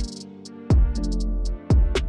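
Electronic background music with a steady beat: a deep bass line, a kick drum about once a second and quick hi-hat ticks.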